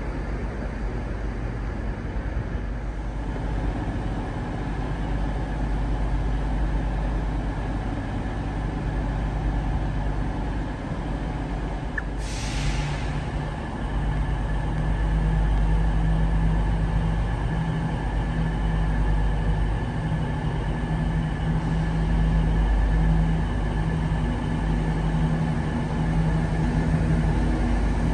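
Train's diesel engine running steadily with a low hum. About twelve seconds in comes a short hiss of released air from the brakes, after which the engine note grows a little louder.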